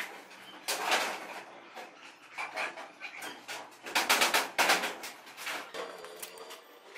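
Metal clinks and knocks from steel parts being handled against a small engine's crankcase, with a quick run of clicks about four seconds in.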